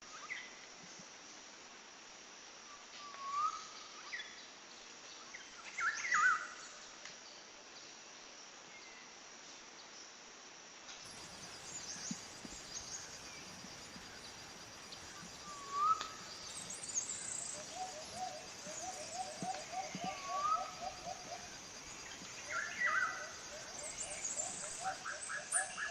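Wild birds calling: scattered short whistled chirps, several with a rising curl, over an outdoor background. From about two-thirds of the way in, a fast trill of about five notes a second repeats. After a change in the background partway through, a steady high hiss of insects runs under the calls.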